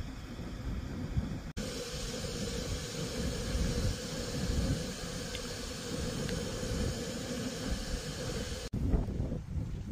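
Steady hiss of an integrated canister gas stove heating water, under a low rumble of wind buffeting the microphone. The hiss is brighter through the middle stretch, from about a second and a half in until near the end.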